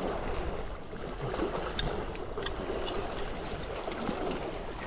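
Steady rushing of wind on the microphone, with a single sharp click about two seconds in.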